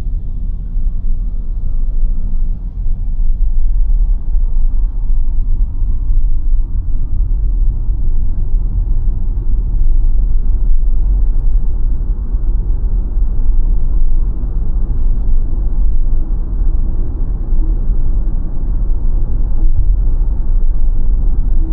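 Steady low road and tyre rumble from a BYD Sealion 7 dual-motor electric SUV being driven, with no engine note.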